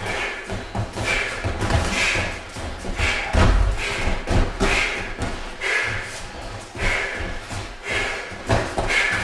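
Light kickboxing sparring: irregular dull thuds of padded gloves and shin-guarded kicks landing and of feet shifting on the floor, the heaviest thud about three and a half seconds in.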